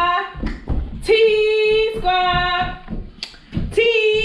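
A woman's voice singing unaccompanied in long held notes. Each phrase is a higher note stepping down to a lower one, and the phrase repeats about every two seconds.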